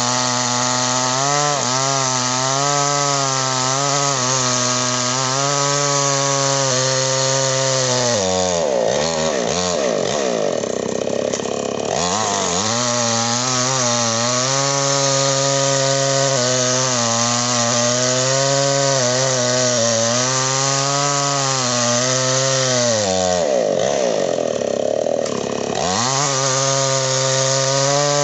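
Ecolait two-stroke chainsaw running at high speed while felling a tree. Its engine note sags and climbs back up twice, about nine and twenty-four seconds in.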